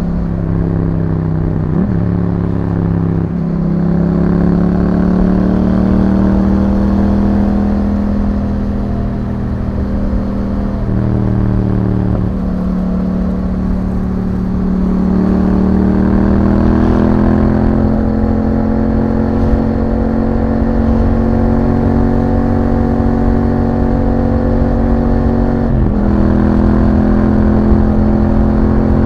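Yamaha MT-07's 689 cc parallel-twin engine running through an Akrapovic exhaust fitted with a dB killer, heard from on board while riding. The engine note climbs gradually and holds, broken by a few brief dips: twice near the start, about twelve seconds in, and near the end.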